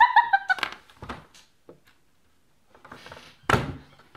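A person's high-pitched squealing laugh at the start, a few small clicks, a short pause, then one loud, short burst of breathy noise about three and a half seconds in.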